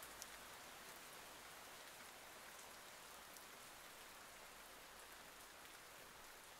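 Faint, steady rain hiss with a few scattered drop ticks.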